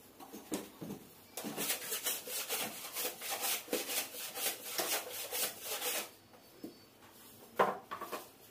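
A laminated wooden panel rubbing and scraping against the cabinet's woodwork as it is worked into place overhead, in a quick run of short scraping strokes, followed by a single sharp knock near the end.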